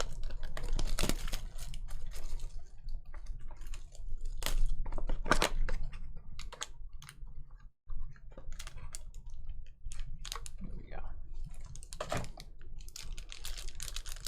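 Irregular clicks and crackles of a sealed trading-card box and its plastic wrapping being handled and opened, over a steady low hum.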